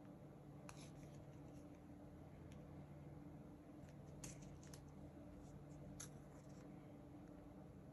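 Near silence: room tone with a low hum and a few faint clicks and rustles.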